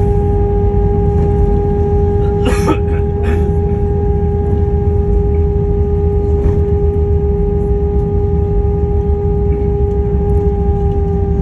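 Cabin noise of an Airbus A319 rolling out after landing, spoilers still raised: its CFM56 engines give a steady whine over a low rumble of the wheels on the runway, and the whine dips slightly in pitch near the end. A couple of brief clatters come about two and a half and three seconds in.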